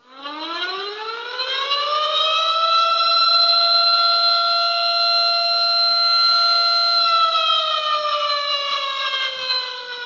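Civil-defense-style siren wail, rich in overtones: the pitch climbs over about two seconds, holds steady, then slowly sinks from about seven seconds in. It is the siren that signals the start of the Purge.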